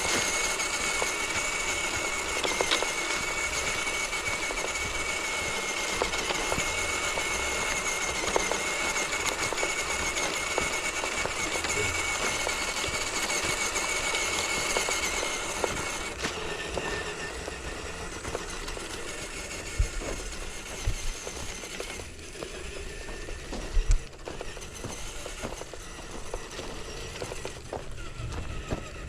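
Electric motor and gear train of a radio-controlled scale crawler truck running with a steady high whine. It eases off about halfway through, followed by a few sharp knocks.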